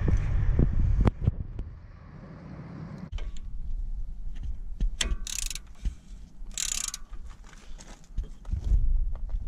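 Socket ratchet turning a brake caliper bracket bolt: scattered metal clicks, then two short bursts of rapid ratchet clicking about five and seven seconds in.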